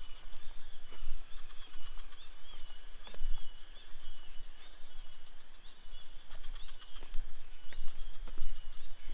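Rural outdoor ambience: small birds chirping and a steady high insect drone over a low rumble on the microphone, with a few soft knocks.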